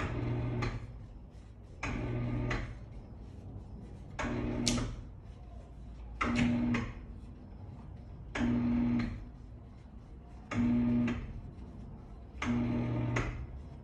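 Auxx-Lift ceiling storage lift's motor running in short bursts of under a second, seven times at about two-second intervals, each with a steady hum. The lift steps upward as its ceiling stop is adjusted by turning the inside adjustment hole to the right.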